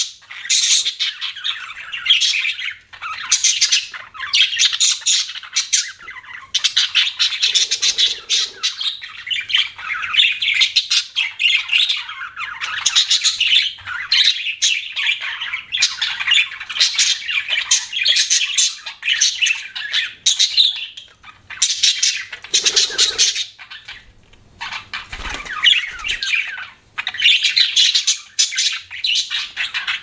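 Budgerigars chattering and warbling almost without pause in fast, scratchy runs of a few seconds, broken now and then by brief gaps.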